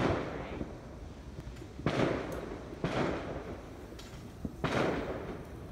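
Fireworks going off in the distance: four sharp bangs a second or two apart, each followed by a rolling echo.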